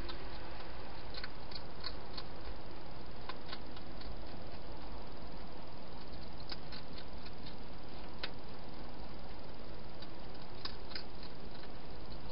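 Wild hedgehog feeding at bowls inside a plastic feeding box: scattered small clicks and crunches at irregular times, sometimes in quick runs, over a steady background hiss.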